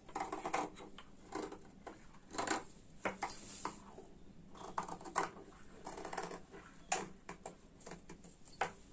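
Tailor's scissors cutting through layered dress fabric and neck canvas: a run of short, irregular snips, roughly one or two a second.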